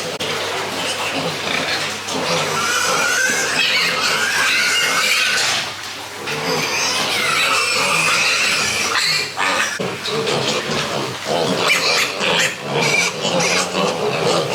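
Pigs squealing, several high, wavering squeals overlapping almost without a break, with a short lull about five and a half seconds in.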